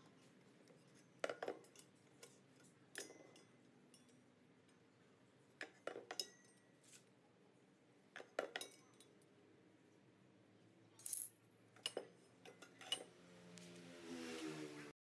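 Steel ruler and square clinking and tapping against a steel box-section pole and the plywood board it lies on: scattered sharp metallic knocks, the loudest about two-thirds through.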